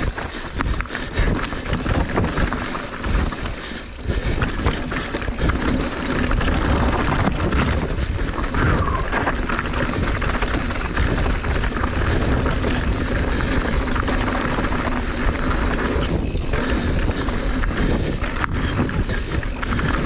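Mountain bike riding fast down a dirt downhill trail: tyres on dirt and rock and the bike rattling over bumps, with rushing air on the camera's microphone. The first few seconds are knocky over rocky ground, and about five seconds in the noise turns louder and steadier.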